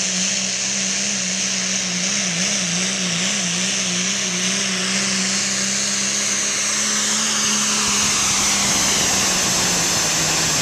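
Diesel pickup truck engine at full throttle, pulling a weight-transfer sled down a pull track. It holds a steady high-rpm note with a strong high-pitched hiss over it, and the note wavers briefly about three seconds in.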